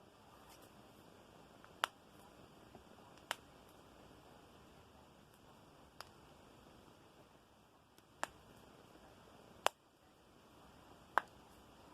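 Knuckles cracking: six sharp pops, one every second or two.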